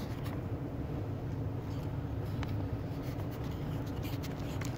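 South Bend lathe's electric motor running steadily with a low, even hum, a few faint ticks over it.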